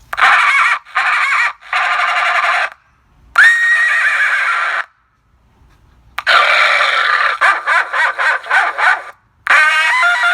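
Car horn sounding in a series of loud honks: three short ones, a longer blast, then a long stretch broken into rapid stuttering toots, and another long blast near the end. The pitch wavers within each blast.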